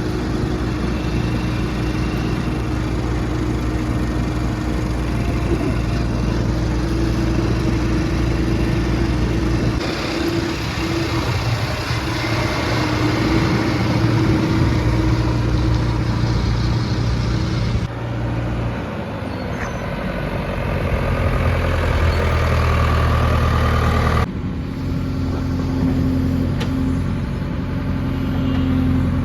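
JCB 3DX backhoe loader's diesel engine running steadily while it works, its note changing abruptly three times along the way.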